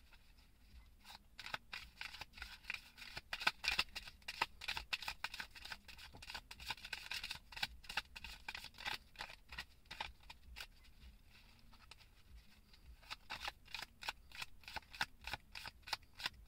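Deck of tarot cards being shuffled by hand: a quick run of light card snaps and slides, easing off briefly about eleven seconds in before picking up again.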